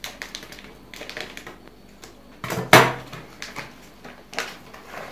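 Scissors snipping open a foil bag of ground coffee, with the bag crinkling in the hands and one louder knock about halfway through.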